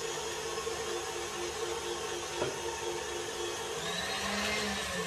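Stand mixer motor running steadily with a humming whine, with one short knock about halfway; near the end its pitch rises and then falls.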